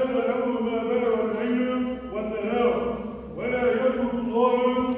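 A man chanting an Islamic religious recitation in long, held melodic phrases with ornamented turns, pausing briefly for breath about two seconds in and again just past three seconds.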